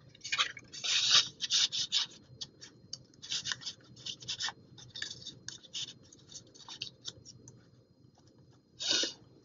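Paper cards and tags rubbing and sliding in and out of a planner's pockets: a run of short, scratchy rustles that thins out after about six seconds, with one more rustle near the end.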